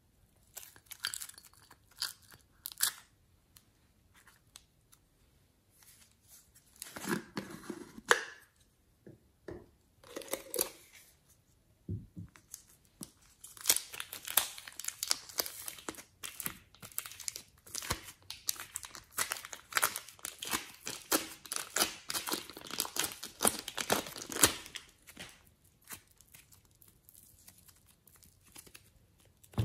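Close-up crinkling and crackling as plastic piping bags, clay and slime are squeezed and worked by hand. It comes in short separate bursts early on and then in a long, dense crackly stretch from about 13 to 25 seconds in.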